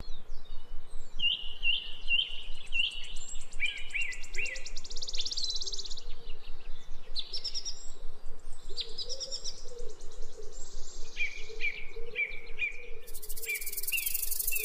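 Birds chirping: runs of short, repeated chirps at about three a second, broken by fast trills. Near the end a shrill, steady insect buzz comes in.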